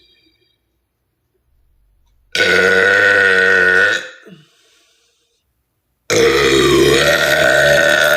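A woman's two long, loud, deliberate burps of swallowed air. The first comes about two seconds in and lasts under two seconds; the second, longer one starts about six seconds in.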